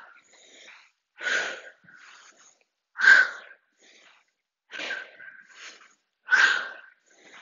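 A woman's hard breathing while she exercises, with four loud, sharp breaths about a second and a half apart and quieter breaths between them. The breaths are paced with alternating squat-to-stand reps, exhaling on each rise.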